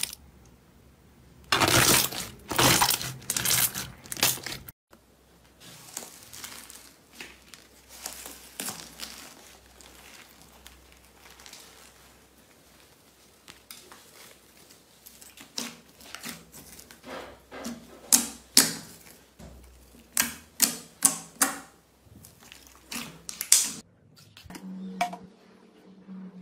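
Slime being pressed, stretched and torn by hand, making sticky crackling and crinkling sounds. Louder crackles come a few seconds in, and a run of sharp pops and snaps from air pockets bursting comes in the second half.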